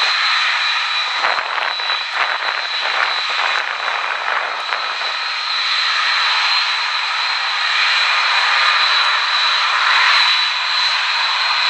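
Boeing 767-300ER's twin jet engines at takeoff thrust during the takeoff roll: a steady rush of jet noise with a thin, high whine held above it. The noise grows slightly louder about eight to ten seconds in.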